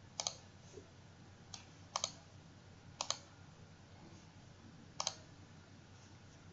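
Computer mouse clicking: a few quick double-clicks spread a second or two apart, with faint room hiss between them.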